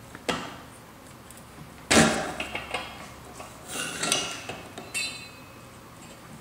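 Metal clinks and knocks from a steel fitness pole's collar being twisted and shifted against the pole and chrome dome to line up its screw holes. The loudest knock comes about two seconds in, and a few clinks near the middle ring briefly.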